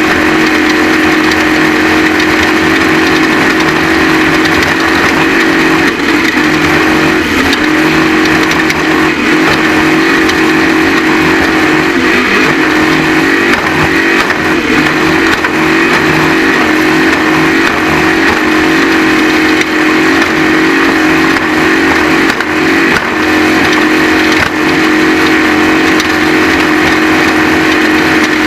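Off-road race vehicle's engine running hard at high, fairly steady revs, loud and continuous, with small rises and dips in pitch as the throttle shifts.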